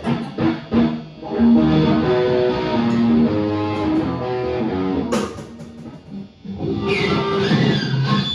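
Electric guitar played through an amp: a run of held single notes stepping up and down, then a sharply struck chord about five seconds in, followed by more playing.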